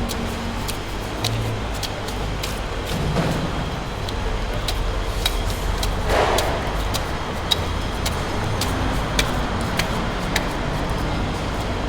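A steady low rumble of background noise, with many short, sharp clicks and knocks at irregular intervals and a brief swell of noise about six seconds in.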